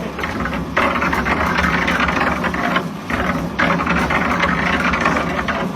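Sand grinding machine running with a steady, rough rattling churn that dips briefly twice, about half a second in and about three seconds in.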